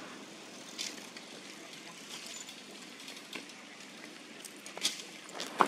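Faint steady outdoor background noise, broken by a few brief high chirps and one sharp click near the end.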